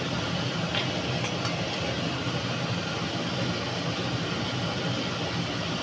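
Steady low mechanical hum with an even hiss, unchanging throughout, with a few faint light taps about a second in.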